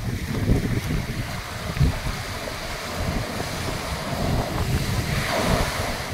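Sea surf washing and breaking along the shore, with wind buffeting the microphone in irregular gusts.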